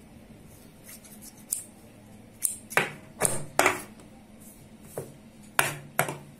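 Tailor's scissors snipping off the extra cotton fabric folded over a buckram neck facing: a string of short, sharp snips, most of them between about two and four seconds in, with a few more near the end.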